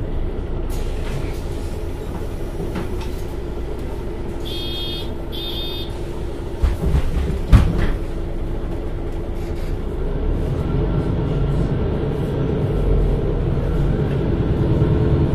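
MAN Lion's City NL323 city bus's diesel engine running at idle. About four and a half seconds in come two short beeps, then two thumps as the doors close. From about ten seconds the engine note rises and grows louder as the bus pulls away.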